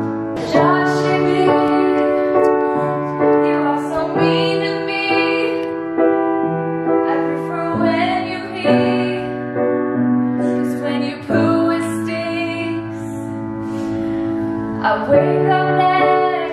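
A woman singing a slow song to piano accompaniment on a grand piano, the chords held and changing every second or two under the sung melody.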